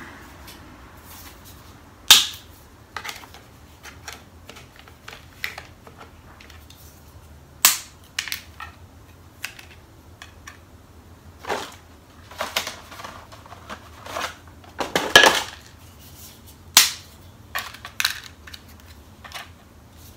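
Dry lasagna noodles being snapped into pieces and laid in a baking dish: a series of sharp, brittle cracks at irregular intervals, the loudest about 15 seconds in. A steady low hum runs underneath, likely the oven fan.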